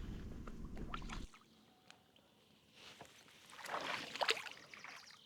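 A low rumble for about the first second, then water splashing and sloshing, loudest near the end, as a hooked fish is pulled out of the water.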